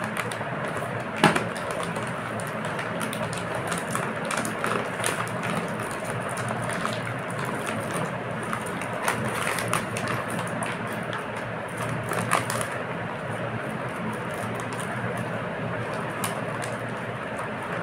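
Crinkly plastic snack packet of namkeen rustling and crackling as it is handled, with frequent sharp crackles and a louder snap about a second in and again near twelve seconds.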